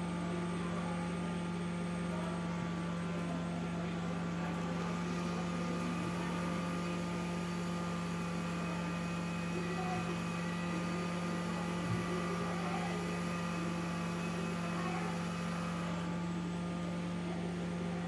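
Hot air rework station running steadily: a constant hum from its air supply with a hiss of hot air from the nozzle, as it reflows solder to fit or remove small components on a motherboard.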